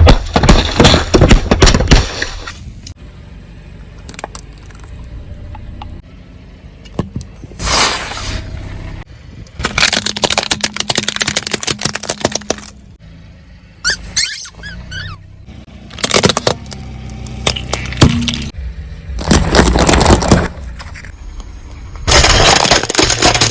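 A car's tyres crushing brittle objects: repeated loud crunching, cracking and breaking, in about seven separate bursts, with a low steady hum between them.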